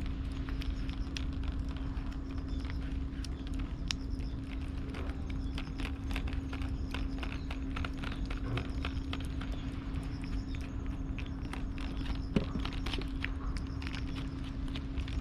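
Cat crunching dry food, a quick irregular run of small crisp clicks, with one sharper click about twelve seconds in.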